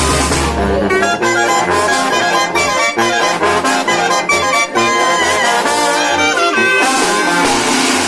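Banda brass music, trumpets and trombones playing a lively melody, cut between stretches of electronic dance music. A heavy bass beat gives way to the brass about a second in and comes back near the end.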